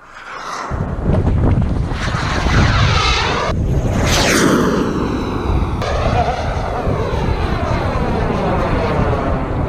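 SWIWIN 190N jet turbine of a large RC sport jet in flight: a loud rushing roar and whine that rises over the first second. About four seconds in, a high whine drops sharply in pitch as the jet passes.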